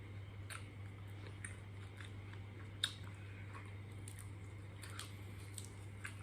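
A person chewing crispy pork close to the microphone, with irregular short crunches, the sharpest a little under three seconds in. A steady low hum runs underneath.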